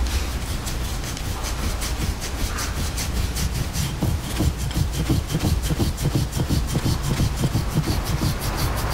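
Stainless steel massage plate (a Graston-style scraping tool) scraping along oiled skin of the lower leg in quick, repeated short strokes. The strokes grow heavier and louder from about halfway.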